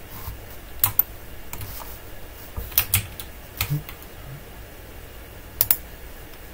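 Clicks of a computer mouse and keyboard during desk work: three pairs of short, sharp clicks, about a second, three seconds and five and a half seconds in.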